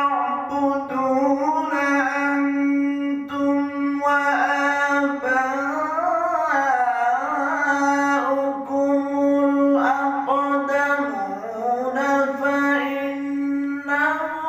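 A man reciting the Quran in the melodic tilawat style: long, ornamented sung phrases whose pitch slides and bends, with short breath breaks between them, over a steady low drone.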